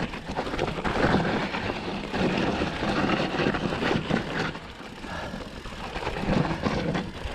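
Bird Aeris 120 full-suspension mountain bike riding down a loose dirt trail: knobby tyres rolling over dirt and roots, with rattling from the bike. It eases off briefly about five seconds in.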